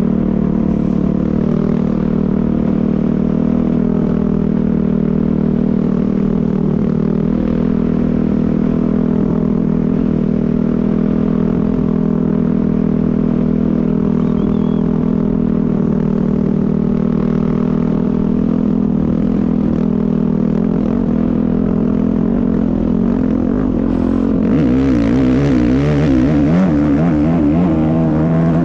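Off-road race vehicle's engine heard onboard, running at a steady speed. About 24 seconds in, a rush of noise rises over it and the engine pitch wavers, then falls near the end as it slows.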